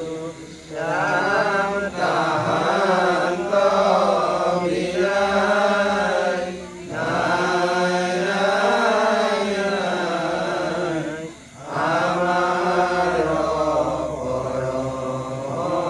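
Nam-prasanga devotional chanting: voices intoning in long, slowly rising and falling melodic phrases, broken by short pauses.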